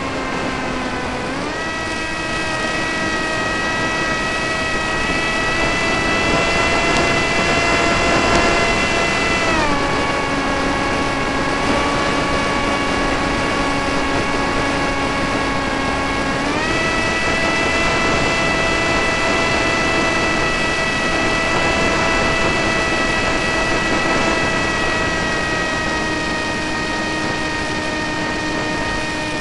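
Radio-controlled model airplane's motor and propeller running in flight, close to the onboard camera on the fuselage. The pitch steps up about a second and a half in, drops at about ten seconds as the throttle comes back, and climbs again at about seventeen seconds.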